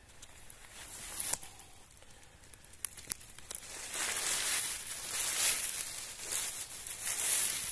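Dry leaf litter and twigs rustling and crackling, with a few sharp snaps in the first half and louder, denser rustling from about halfway.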